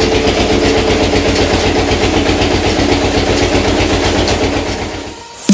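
Mustard-oil crushing mill machinery running steadily with a fast, even pulsing beat. It fades out near the end.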